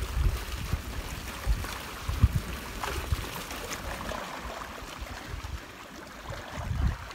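Small sea waves washing and gurgling over shoreline rocks, with gusts of wind buffeting the microphone in uneven low rumbles.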